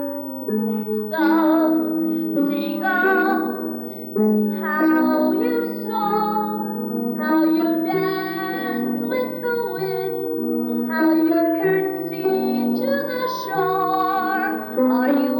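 A woman singing a slow ballad with a wavering vibrato over sustained instrumental accompaniment from a show's pit orchestra; her voice comes in about a second in, after a held instrumental chord.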